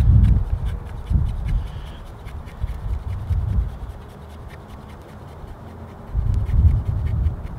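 Camp knife blade shaving thin curls off a dry stick to make a feather stick: a run of short scraping strokes, with bursts of low rumble.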